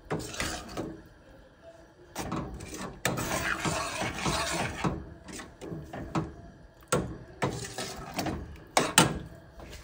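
A metal spoon stirring thick dal in a stainless steel pot, scraping along the bottom and sides, with a few sharp knocks against the pot, one about seven seconds in and another near the end.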